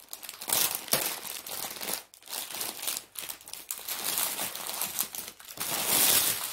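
Plastic bags of diamond-painting drills crinkling and rustling as they are handled and pulled out of a larger clear plastic bag, in irregular loud bursts, loudest near the end.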